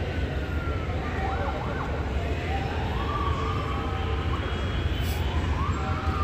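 A siren wailing, its pitch sliding up and down with a couple of quick swoops about a second in, over a steady low rumble.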